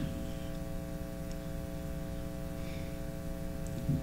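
Steady electrical mains hum: several steady tones held level throughout, with a faint brief sound near the end.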